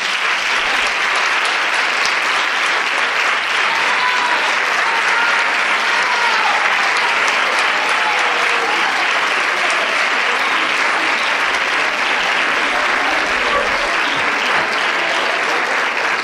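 Audience applauding steadily and loudly, with a few faint voices calling out over the clapping.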